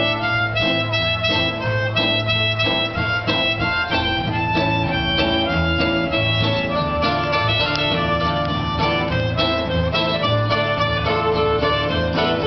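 Acoustic jazz band playing an instrumental tune: a melody of held notes over a steady bass line.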